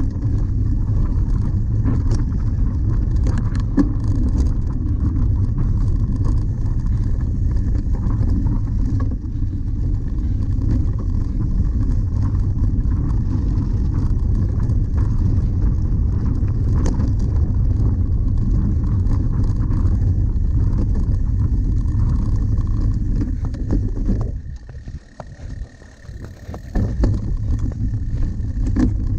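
Wind rumbling on the microphone of a camera riding along with a cyclocross bike over a bumpy grass course, with scattered clicks and rattles from the bike. The rumble drops away briefly near the end, then comes back.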